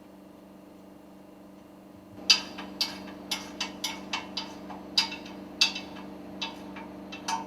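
A string of irregular sharp metallic clicks and knocks, about two or three a second, starting about two seconds in, like steel parts and tools being handled. Under it runs a steady low hum.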